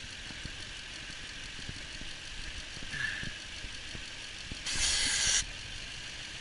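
Truck engine idling steadily under the hood. About three-quarters of the way through, a loud hiss of under a second as the vacuum hose comes off the brake booster and air is sucked into the open hose: good, strong intake vacuum.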